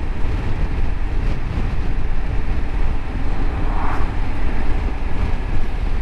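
Steady riding noise from a Honda Africa Twin 1100 motorcycle under way: low wind rumble and road and engine noise with no clear pitch.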